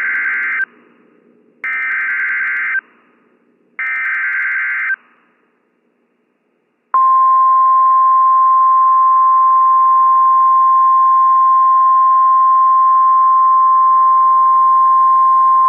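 Emergency Alert System signal on NOAA Weather Radio. It opens with three short, screechy digital SAME header bursts, each about a second long, encoding a severe thunderstorm warning. After a brief gap comes the steady 1050 Hz warning alarm tone, held for about nine seconds.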